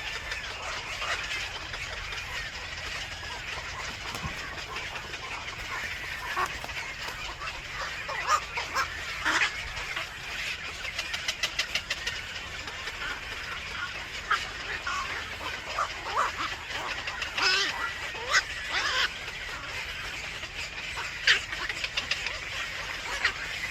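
Birds chirping and calling in short, scattered notes, with a quick run of rapid ticks about eleven seconds in.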